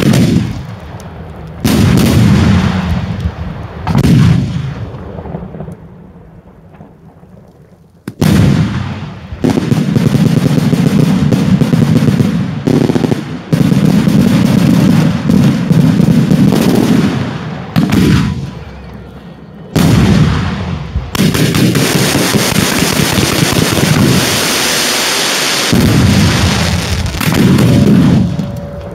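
Daytime fireworks display going off close by: loud bangs and booms one after another. They fall off into a short lull about a quarter of the way in, then resume abruptly and run on in an almost continuous barrage near the end.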